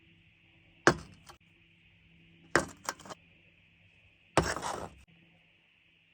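Double Bell Glock 19 Gen4 green gas gel blaster pistol firing three shots a second or two apart, each a sharp metallic crack; the second is followed by a couple of lighter clicks and the last trails off in about half a second of noise.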